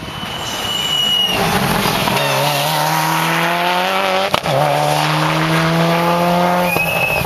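Rally car engine at full throttle, its pitch climbing through the gears with short breaks at the gear changes as the car approaches and passes. There is a sharp bang about four seconds in.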